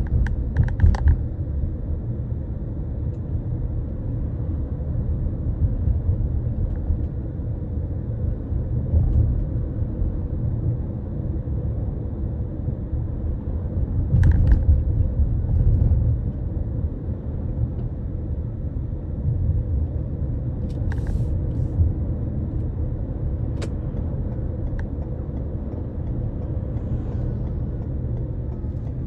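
Low, steady road and engine rumble inside a moving car's cabin, swelling slightly about halfway through. A few brief sharp clicks sound at scattered moments.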